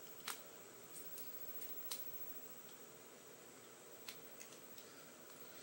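Plastic parts of a Transformers action figure clicking and knocking as they are rotated and pressed onto their pegs during transformation: a handful of short sharp clicks, the loudest about a third of a second in and another just before two seconds, over a faint steady hiss.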